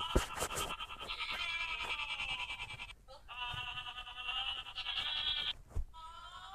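Heavily layered, digitally processed sneeze sound effect that has turned into a warbling, bleat-like drone of stacked tones. It runs in two long stretches with a break about three seconds in, and there are sharp clicks near the start and near the end.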